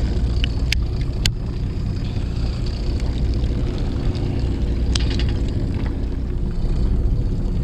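Fishing boat's engine running steadily with a low hum, with a few short clicks over it.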